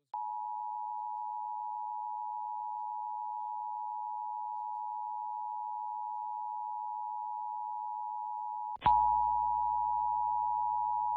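Emergency Alert System attention signal: the steady two-tone alert tone, 853 and 960 Hz sounded together, sent ahead of the spoken required-monthly-test message. About nine seconds in there is a click, and the tone carries on louder over a low hum.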